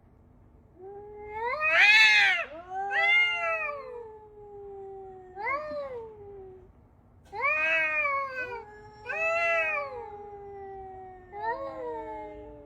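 A domestic cat meowing repeatedly in about six long, drawn-out yowls, each rising and then sliding down in pitch.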